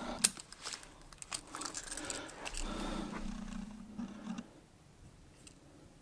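Small metal clinks and jingles of a Victorinox belt clip's clasp and key ring, with cloth rustling, as a Cybertool 42 Swiss Army knife is taken out of a jeans pocket: a run of light clicks in the first half, then quiet.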